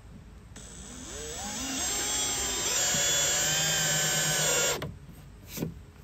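Drill-driver driving a deck screw into a composite deck board. The motor winds up over about a second, runs steady under load for about three seconds, then stops suddenly. A brief sharp sound follows near the end.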